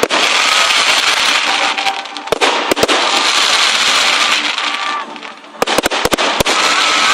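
Fireworks going off: a dense, loud crackling hiss punctuated by sharp bangs, two about two and a half seconds in and a quick run of four about six seconds in. The crackle eases briefly just before that run.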